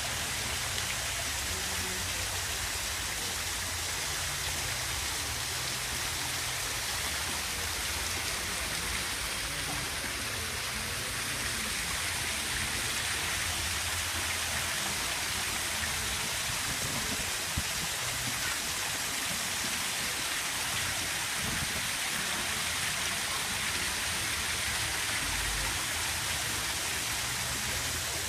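Water splashing steadily down a small landscaped garden waterfall, a continuous even rush.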